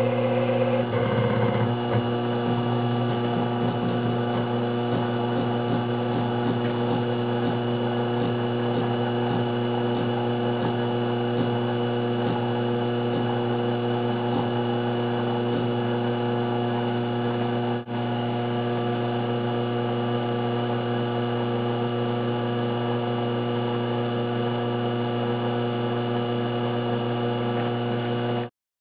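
Taig CNC mill running at a steady speed: an even motor hum and whine made of several steady tones. It dips briefly about 18 seconds in and cuts off suddenly just before the end.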